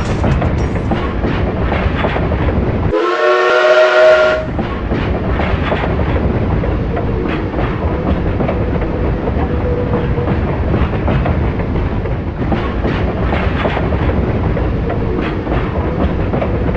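Train running on the rails with a steady rumble and clicking over the rail joints; its horn sounds once for about a second, about three seconds in.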